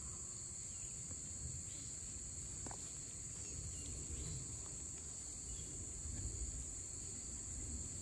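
Steady chorus of insects: a constant, high-pitched shrill that never breaks, heard faintly over a low rumble.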